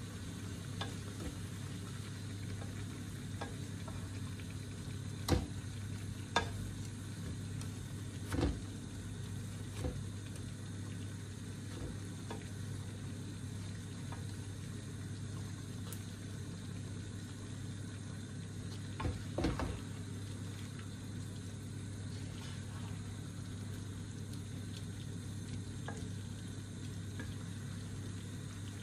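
Lamb and spinach sizzling in a pan while a wooden spoon stirs them, with a steady low hum underneath. A few sharp knocks of the spoon against the pan stand out, a cluster between about five and ten seconds in and a pair around nineteen seconds.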